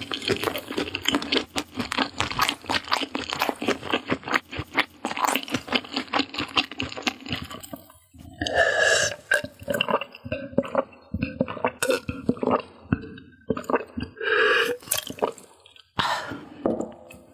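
Close-miked chewing, a rapid run of wet crackles and crunches for about eight seconds. Then come several throaty gulps as a drink is swallowed from a glass.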